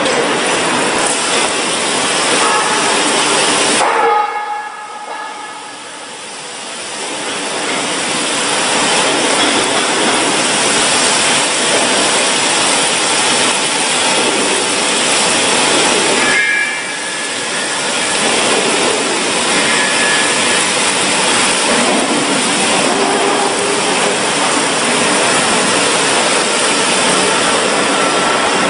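Loud, steady hiss of quench water spraying onto a steel shaft heated red-hot by an induction coil, on a CNC induction hardening machine, the water flashing to steam. The hiss drops away suddenly about four seconds in and builds back over a few seconds, then dips briefly again about sixteen seconds in.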